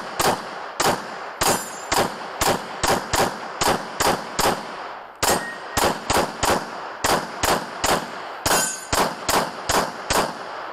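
A rapid string of pistol shots, some twenty-five in all at two to three a second, with a short break about five seconds in.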